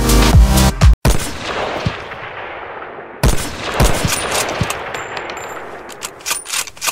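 Electronic dance intro music cuts off about a second in. Two crash-like sound-effect bursts with sharp cracks follow, the second about two seconds after the first, each fading away.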